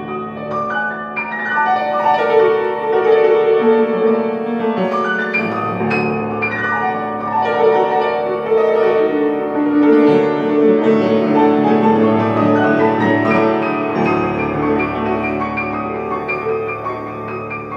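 Solo piano playing: low bass notes held for several seconds under many overlapping, ringing notes higher up.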